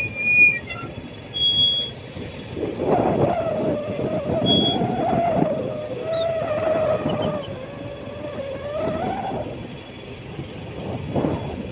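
A fishing boat's motor running steadily, with a wavering whine from about three to nine seconds in.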